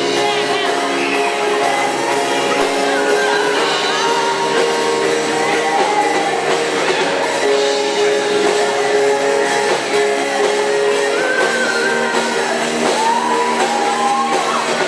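A live school band playing a song, with singing over guitar and other instruments, echoing in a large hall.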